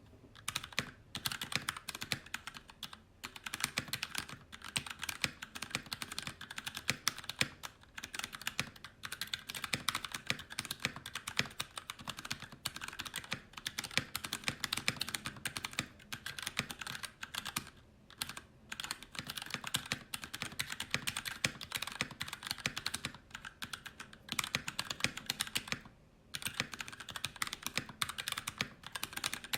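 Fast, continuous typing on a mechanical keyboard fitted with HK Gaming Miami PBT keycaps: a dense run of key clacks broken by a few short pauses.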